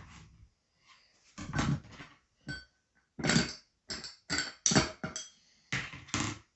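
A knife knocks once on a cutting board as it cuts a lemon slice. Then comes a run of short clinks and scrapes as the lemon slice is pushed down among ice cubes in a tall glass.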